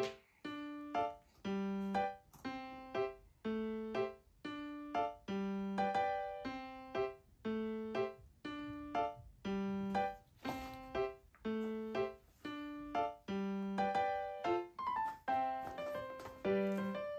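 Background music: a simple keyboard melody of short, separate notes at a steady beat, about two notes a second.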